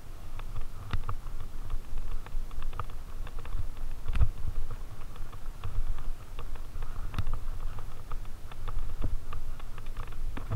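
Fatbike riding over a dirt trail covered in dry leaves: a low rumble from the fat tyres on the ground, with many irregular clicks and rattles and a heavier knock about four seconds in.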